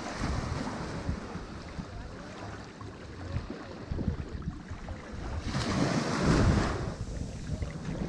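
Sea surf washing onto a beach, with a wave surging in and breaking louder about six seconds in.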